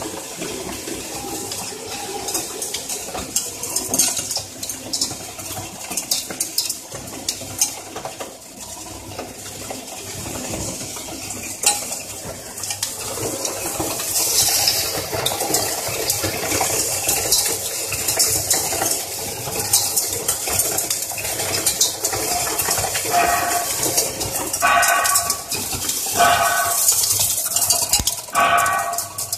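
Jujube paste machine running, with frequent sharp metallic clinks and rattling as the separated pits and skins drop into a stainless-steel bowl.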